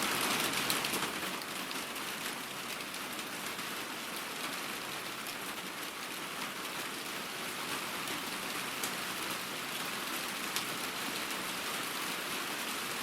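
Heavy rain falling steadily: an even hiss of rain on surfaces with a few separate drop ticks, a little louder in the first second or so before settling.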